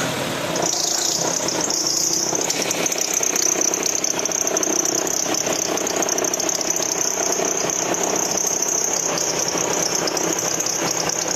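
Opel Astra engine running with a steady high-pitched drive-belt whistle that sets in about a second in. The mechanic traces the whistle to a seized alternator overrunning clutch pulley, not to the tensioner or the belt.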